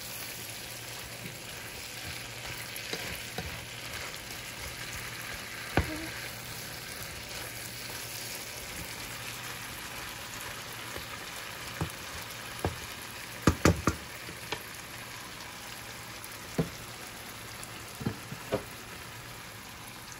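Shrimp sizzling steadily as they brown in garlic butter in a frying pan, stirred with a wooden spatula. Short knocks of the spatula against the pan come now and then, with a quick run of three about two-thirds through.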